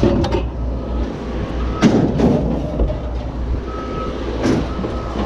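A heavy vehicle's engine running with its reversing alarm beeping, and a few metal clanks.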